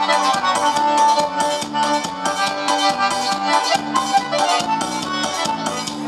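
Live forró band music played over a sound system, an accordion carrying the melody over a steady, quick dance beat.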